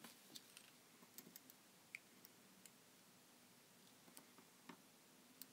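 Near silence, with a dozen or so faint, scattered small clicks from handling a soldering iron and a component's leads on a circuit board.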